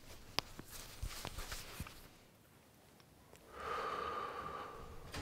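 A person breathing out hard through the nose, a snort lasting about a second and a half, starting about three and a half seconds in. Before it, a few faint clicks and rustles.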